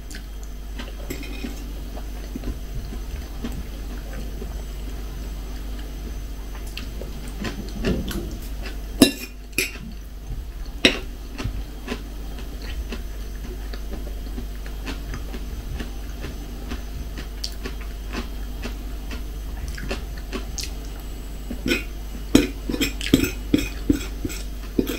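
A metal fork clinking and scraping against a plate while eating: a few scattered clinks, then a quick run of clinks near the end.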